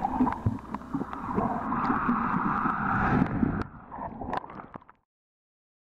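Water sloshing and gurgling with a rush of bubbles, heard muffled by an underwater camera's housing, loudest in the middle. The sound cuts off suddenly near the end.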